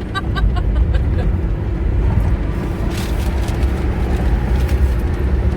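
Road and engine noise inside a moving car on a freeway: a steady low rumble.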